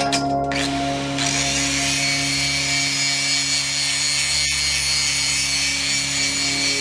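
Angle grinder with a cutoff disc running at speed, then biting into steel from about a second in: a steady grinding over the motor's whine, with a single click midway.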